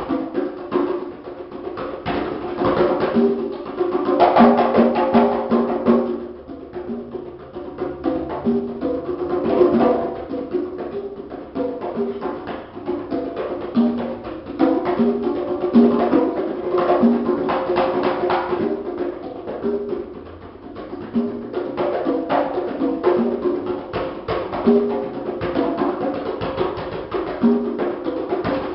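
A set of three congas played with bare hands in a solo: a fast, continuous stream of strokes with clear drum tones at several different pitches, swelling and easing in loudness, with a short softer passage about two-thirds of the way through.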